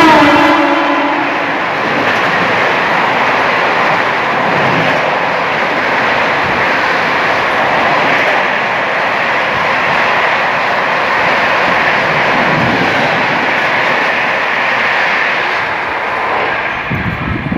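Indian Railways express train running through a station at speed: the electric locomotive's horn ends in the first second with a drop in pitch as it goes by, then a steady loud rush of wheels and air as the long rake of coaches passes close by.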